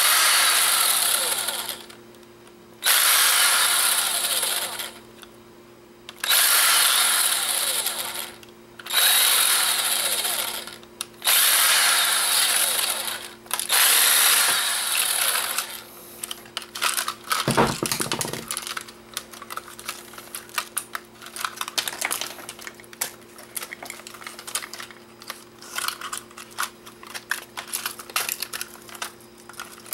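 Cordless power screwdriver backing out tiny screws from a camera body, in about six short runs of two seconds or so each. In the second half come irregular clicks and rattles of plastic casing parts being handled and pulled apart.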